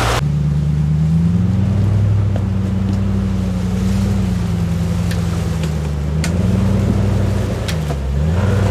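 Land Rover Discovery's V8 engine, with a tuned camshaft, pulling hard at low revs as it climbs a steep bank. Its pitch rises and falls with the throttle, dipping and picking up twice near the end. A few sharp snaps come through around the middle as it pushes through the brush.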